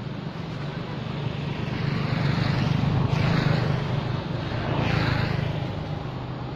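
Road traffic passing: a vehicle's engine hum and tyre noise growing louder, peaking about three seconds in and again near five seconds, then fading.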